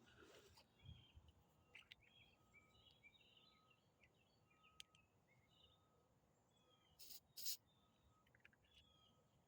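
Faint birdsong in quiet surroundings: many short, high chirps from small birds, with a thin steady whistle coming and going. Two brief scuffing noises come close together about seven seconds in.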